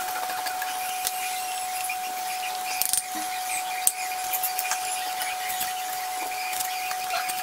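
Dosa sizzling on a hot cast-iron tawa in a steady hiss, with a few sharp clicks of metal utensils on the pan about three and four seconds in. A thin steady whine runs underneath.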